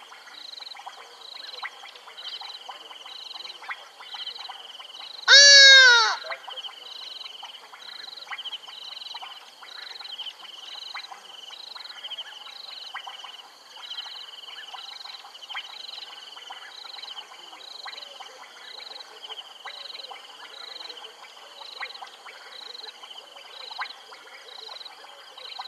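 Frog chorus at a waterhole: rhythmic high calls about twice a second with scattered clicks. About five seconds in, one loud animal call lasting about a second rises and then falls in pitch.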